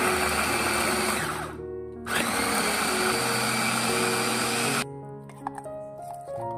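Electric food chopper whirring as it grinds dried red chillies and spices into a paste. It runs in two bursts: about a second and a half, a brief pause, then nearly three seconds more before stopping.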